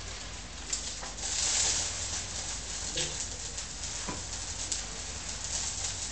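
Small ceremonial fire hissing and crackling, with scattered light clicks and a louder burst of hiss about a second and a half in.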